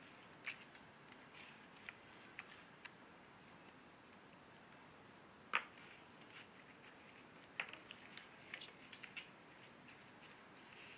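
Slime being handled by hand, giving faint sticky clicks and small pops, with one sharper pop about five and a half seconds in and a quick run of small clicks near eight to nine seconds.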